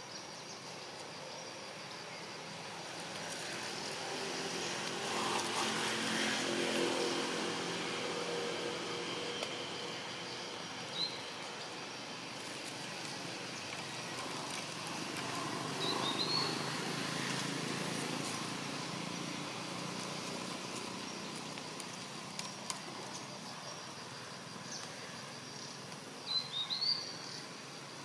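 Outdoor ambience: a steady, high insect trill over a low rumble that swells twice, with a few short, high chirps scattered through.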